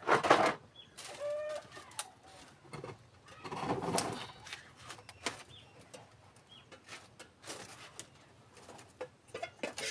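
Birds calling, with a short call about a second in, among several sudden knocks and rustles; the loudest are at the start and about four seconds in.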